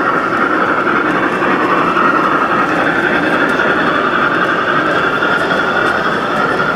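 Model freight train rolling past behind a model steam locomotive: a steady running noise of its wheels on the track.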